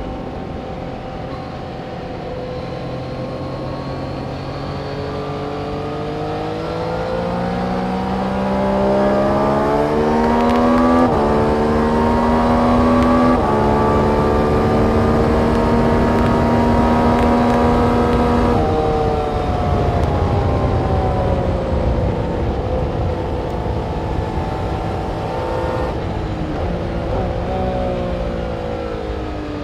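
Yamaha MT-09's inline-three engine under hard acceleration, pitch climbing with two quick upshifts about 11 and 13 seconds in, then held at high revs. About 18 seconds in the throttle snaps shut and the revs fall away through a downshift near the end, over a steady rush of wind and road noise.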